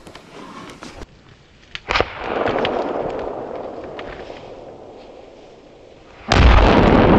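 A homemade XXL smoke-and-salute firework burning: a sharp pop about two seconds in, then a loud hiss from the burning fuse or charge that fades over about four seconds. Near the end the charge detonates with a very loud blast that keeps rumbling.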